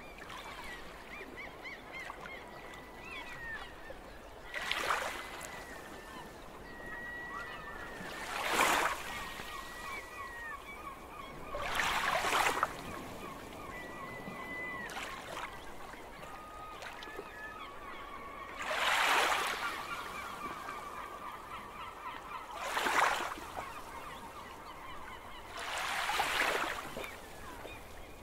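Sea waves breaking and splashing against shoreline rocks, six crashes a few seconds apart with a low wash of surf between them. Thin, wavering bird calls run faintly underneath.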